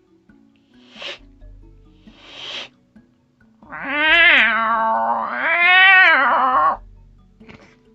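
A man's deep-voiced vocal impression of a cat: two short hiss-like bursts, then a loud, long yowl lasting about three seconds whose pitch rises, dips and rises again.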